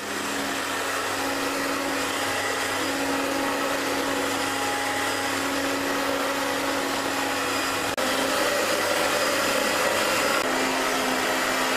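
Handheld hair dryer blowing steadily on high, with a steady motor hum under the airflow, heating clear PVC film until it softens and turns elastic for stretching. A small click and a slight rise in level about eight seconds in.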